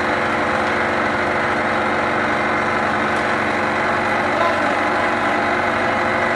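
Candlenut-cracking machine running steadily, a constant motor drone with no pauses.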